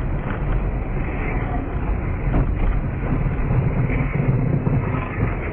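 Car driving on a winter road heard through a dashcam: steady engine, tyre and wind rumble, strongest in the low end, with the dull sound of the camera's low-quality recording.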